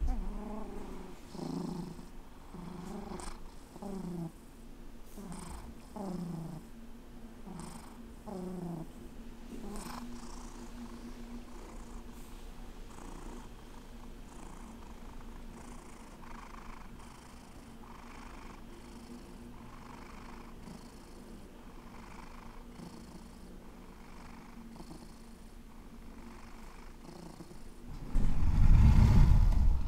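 Long-haired domestic cat purring steadily, the purr swelling and fading with each breath about once a second, stronger in the first ten seconds and softer and even after that. Near the end a loud low rumbling noise takes over.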